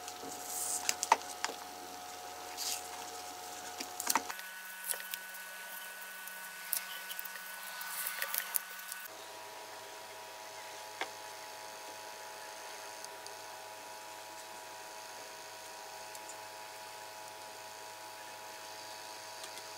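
Small crackles and clicks of old electrical tape being peeled off a motor's wire leads and the wires being handled, over a steady hum. The hum changes pitch abruptly twice, and after about nine seconds only the hum remains, with an occasional tick.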